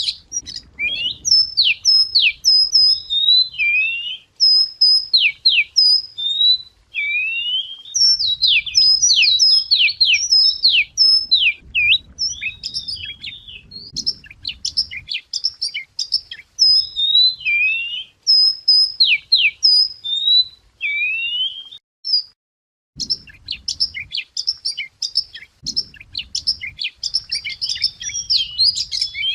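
Wagtail (chìa vôi) singing a long run of quick, varied whistled phrases with rising and falling sweeps, broken once by a short pause near the end. This is a song recording used as a lure.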